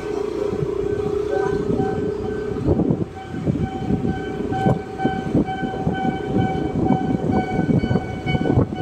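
Motor scooter on the move: the engine runs with a steady whine, and from about three seconds in wind buffets the microphone in uneven gusts.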